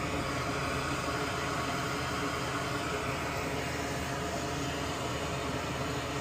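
Steady fan-like hiss and hum from air-moving shop equipment, unchanging throughout.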